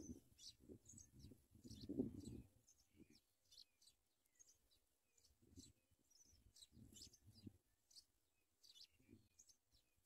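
Faint, thin high cheeps from begging songbird nestlings, many short calls scattered throughout. A low rumble runs under them for the first couple of seconds and again for a stretch later on.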